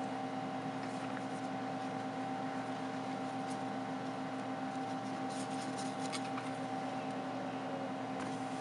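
A steady machine hum with a light hiss fills the room. A microfiber cloth wiping a phone's glass screen adds faint rubbing and light ticks, mostly a little past the middle.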